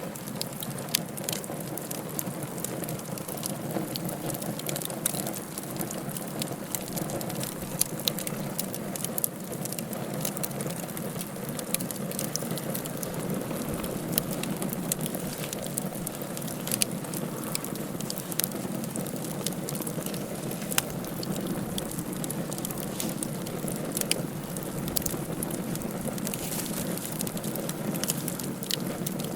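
Wood fire burning in a fireplace: a steady low rushing bed with frequent sharp crackles and pops scattered irregularly throughout.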